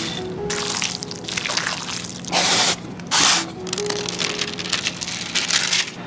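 Minced beef being stirred and squished while ginger water is poured in a little at a time, in repeated wet bursts, the loudest two around the middle, over background music.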